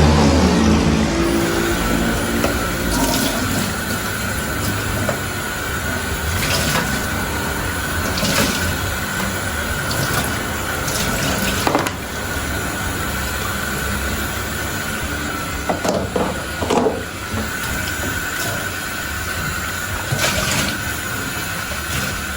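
Water running steadily, with a few short knocks and clinks scattered through.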